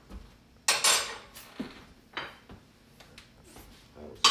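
A few sharp clanks and clinks of metal cookware and utensils at the stove, each ringing briefly. The loudest comes about two-thirds of a second in and another near the end.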